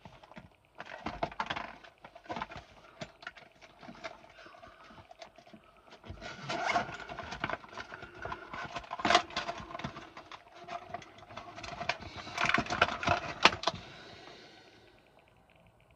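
Irregular clicks, taps and rustling, louder about six, nine and twelve to thirteen seconds in, dying away near the end.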